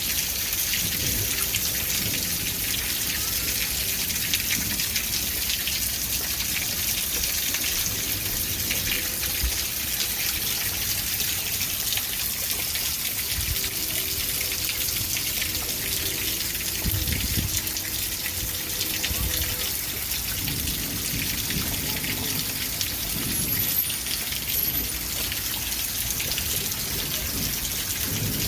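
Steady rainfall, an even hiss of drops, with low rumbles coming and going in the second half and a couple of faint high chirps near the end.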